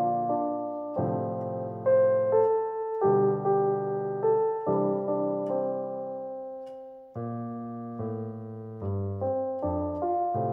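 Background piano music: chords and a melody struck and left to ring, the notes fading before the next are played.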